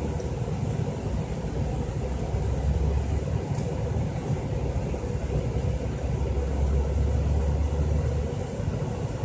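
Steady low rumble of a car's running engine, heard from inside the cabin.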